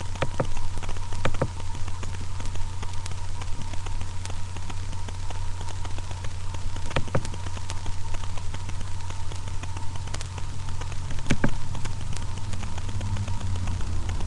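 A small dog scuffling and pushing about on a bed, giving a few sharp clicks and knocks over a steady low electrical hum and hiss from a webcam microphone.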